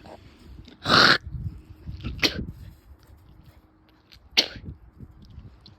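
A dog sneezing three times in short, sharp bursts, about a second, two seconds and four seconds in; the first and last are the loudest.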